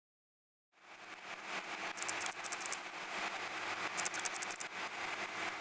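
Steady background hiss and low hum of an indoor aviary, fading in during the first second, with two short bursts of very high, rapid chirping about two and four seconds in.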